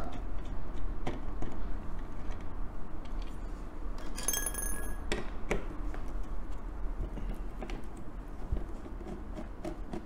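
Light clicks and scrapes of a screwdriver taking out the screws of the AM4 stock-cooler retention brackets on a motherboard. About four seconds in comes a brief, bright ringing chime of several high tones.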